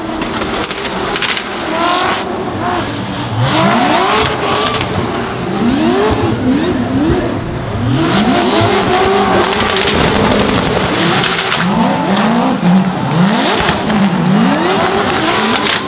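Two drift cars in a tandem run, their engines revving hard, pitch climbing and falling back about once a second, over the noise of tyres sliding.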